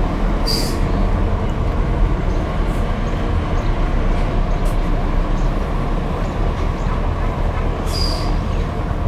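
Street traffic ambience: a steady low rumble of passing cars, with two brief high-pitched chirps, one about half a second in and one near the end.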